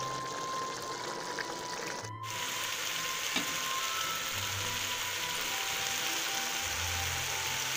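Potato curry with green chillies sizzling and bubbling in a pot as its cooking water boils down, with soft background music over it. There is a brief dropout about two seconds in, and after it the sizzling is louder.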